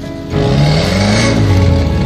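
Electronic dance music with a heavy bass beat, which gets louder about a third of a second in.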